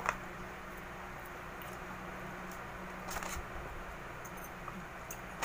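Eating sounds of pizza being handled and bitten: a few short rustles and clicks, the clearest about three seconds in, over a steady low hum.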